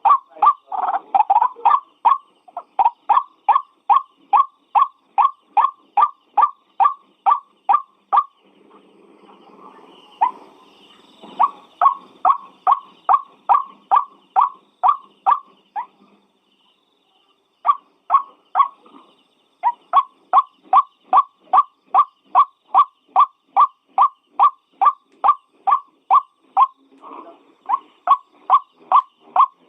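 White-breasted waterhen (ruak-ruak) calling: a long run of short, monotonous notes repeated about three times a second, broken by two brief pauses.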